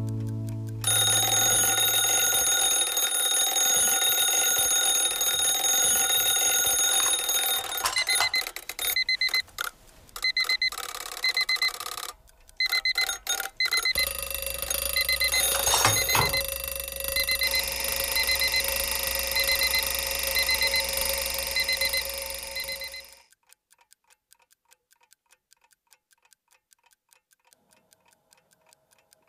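Electronic alarm clock going off: a steady electronic tone overlaid with repeating groups of short high beeps. It cuts off suddenly about 23 seconds in, leaving only faint ticking.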